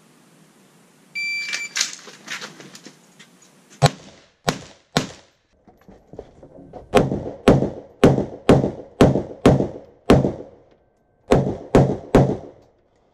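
An electronic shot timer beeps about a second in, then an AR-15 rifle fires about thirteen shots in three strings: three quick shots, a pause, seven at about two a second, a short pause, then three more.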